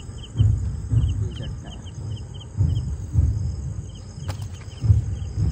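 Night insects, crickets among them, chirping in a quick even rhythm over a steady high-pitched drone. Irregular low rumbles and a sharp click about four seconds in come through louder.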